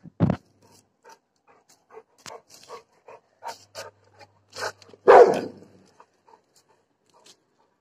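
St. Bernard barking: a sharp bark right at the start and a louder, deep bark about five seconds in, with short quieter sounds in between.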